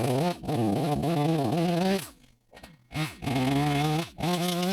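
Gas chainsaw running hard while cutting a dead white oak, its pitch sagging and recovering under load. It falls back to a quieter idle for about a second near the middle and briefly again near the end.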